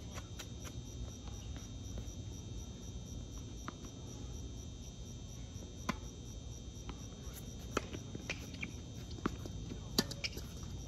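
Tennis ball struck by racquets and bouncing on a hard court during a rally: short sharp pops a second or two apart, the loudest about six and ten seconds in. Crickets chirp in the background.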